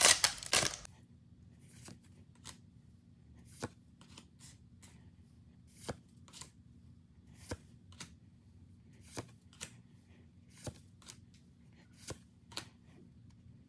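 Pokémon trading cards being flicked off a freshly opened booster pack one at a time, a short crisp snap about every second, often in pairs. A louder rustle of the pack in the first second.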